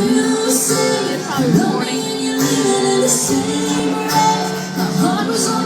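A woman singing a country song live to acoustic guitar accompaniment, with held notes that slide between pitches.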